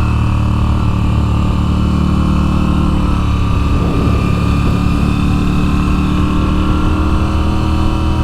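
Moto Guzzi V7's air-cooled transverse V-twin running steadily as the motorcycle is ridden, with a brief change in engine pitch about four seconds in.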